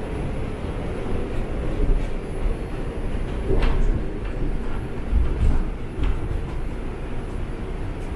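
Subway train running between stations, heard from inside the car: a steady low rumble of wheels on the rails, with a few short clanks or squeaks.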